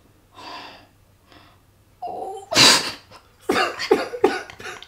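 A woman's breathy sob breaking into a loud burst of laughter about two and a half seconds in, then rhythmic laughing at about three pulses a second.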